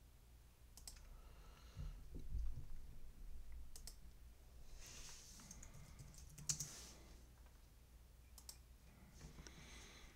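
Scattered computer clicks and a few keystrokes, typing a short label into a charting program's text box, with a soft low bump about two seconds in.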